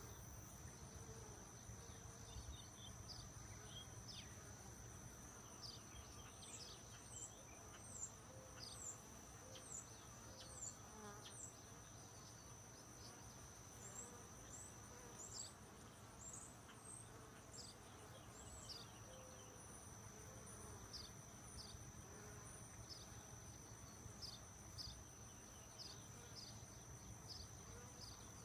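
Faint buzzing of honey bees around an open hive, under a steady high-pitched insect trill and many short, high falling chirps.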